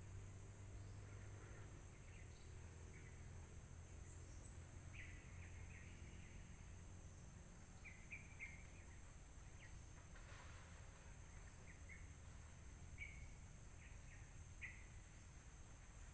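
Faint forest ambience: a steady high insect drone with short bird chirps now and then, more of them from about five seconds in.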